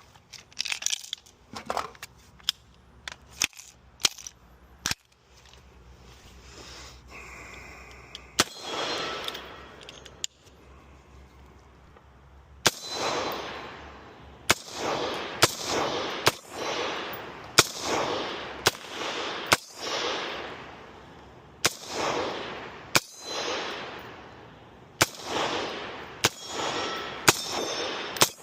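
Gunfire at an outdoor range: a few short, quieter cracks in the first five seconds, then a steady string of single shots about one a second, each followed by a long rolling echo.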